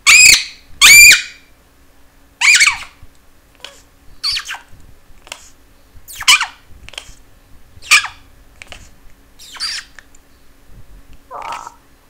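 Nanday conure squawking: two loud, shrill squawks right at the start, then a string of shorter, softer squawks and chirps about once a second.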